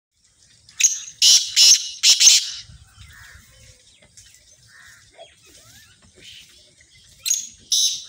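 Black francolin (kala teetar) calling loudly: a phrase of four harsh, grating notes about a second in, and another phrase starting near the end.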